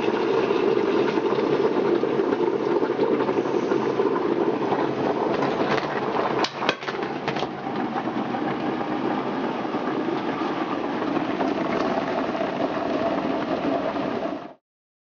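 Boiling water being poured from a stainless saucepan into a plastic tub of caustic soda, a steady rushing noise. There are a few sharp clicks about six to seven seconds in as the tub's lid is snapped on, and the sound cuts off suddenly near the end.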